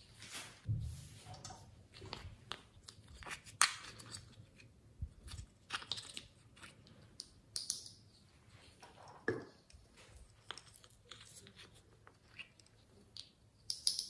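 Light irregular clicks, knocks and rustles of small plastic toy decorations being handled and lifted off the rim of a glass dish, with a few sharper knocks.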